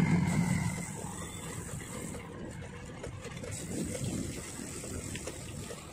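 Motorcycle engine and road rumble while riding. The loudest part comes in the first second, as another motorcycle passes close alongside, then it settles to a steadier, quieter rumble.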